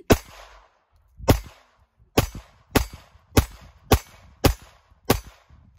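Glock 44 .22 Long Rifle pistol fired eight times in a string: the first two shots about a second apart, the rest coming faster, a little under two a second, each a sharp crack with a short ring.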